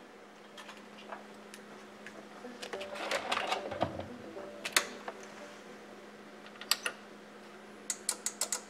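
Handling sounds at a bench power supply: a short rustle, single sharp clicks, then a quick run of about five clicks near the end as its controls are worked, over a steady low hum.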